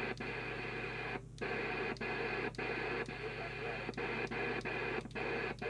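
Skiptech TI4000FM FM CB radio's receiver hissing from its speaker with a low hum. The hiss cuts out briefly about every half second, with one longer gap about a second in, as the rotary channel knob is stepped through the channels.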